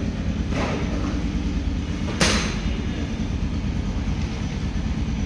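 A steady, low mechanical rumble of a machine running in a workshop, with two short bursts of hiss, about half a second in and a little after two seconds in, the second one louder.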